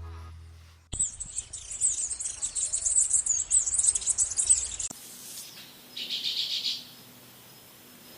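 Background music fades out, then a dense chorus of high-pitched bird chirping runs for about four seconds. After an abrupt cut, a short rapid trill of bird calls sounds for under a second over a quiet background.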